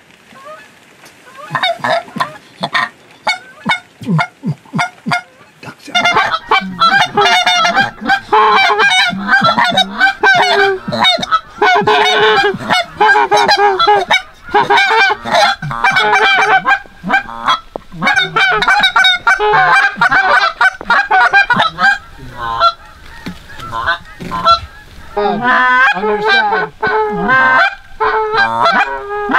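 Canada goose calls blown hard and fast by hunters, a rapid run of honks and clucks. The calls are sparse at first, then from about six seconds in several callers overlap in a dense, loud chatter.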